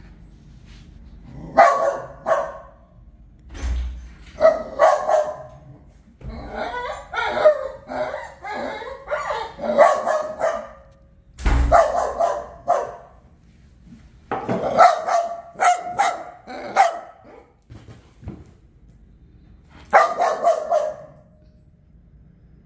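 Small white spitz-type dog barking in bouts of several quick barks, with pauses of one to three seconds between bouts.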